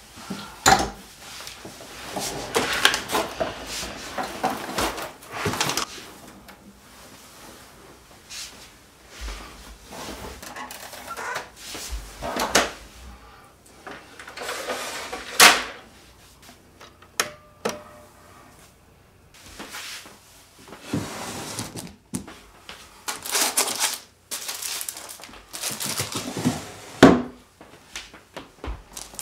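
Scattered knocks, clicks and scrapes of furniture and equipment being handled: a printer cart on castors moved over a wooden floor, the front tray of an Epson printer opened, and a wooden drawer opened and closed.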